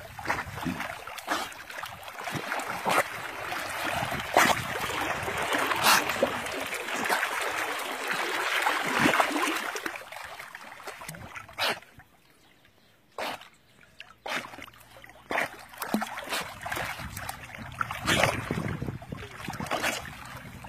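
Water splashing and trickling as an American Staffordshire terrier puppy plays in it, with irregular sharp splashes over a steady wash. About twelve seconds in it drops almost silent for a couple of seconds, then the scattered splashes pick up again.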